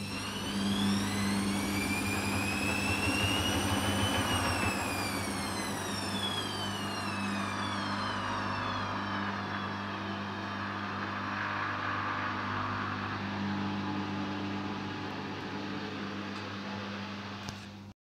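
Hoover Dynamic front-loading washing machine's drum motor whining up into spin, then winding down after about four seconds as the spin is cut short by a suds lock (too much foam in the drum). A steady low hum continues underneath as the drum slows to a stop.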